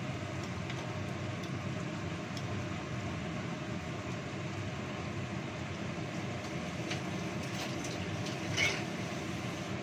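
Kitchen extractor hood fan running with a steady whir, under faint clicks of a spatula stirring spice paste in a wok and a short clatter near the end.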